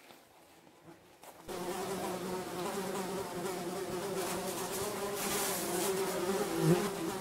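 Buzzing of many flying insects: a steady drone of several overlapping, slightly wavering pitches that sets in suddenly about a second and a half in. One insect swells louder briefly as it passes close near the end.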